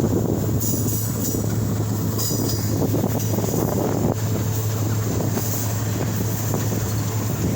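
Steady rumble of a moving vehicle with a constant low hum underneath, running evenly without letting up.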